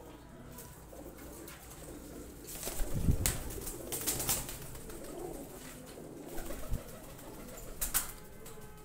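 Domestic fancy pigeons cooing in a loft, with louder bursts of wing flapping about three seconds in and again near the end.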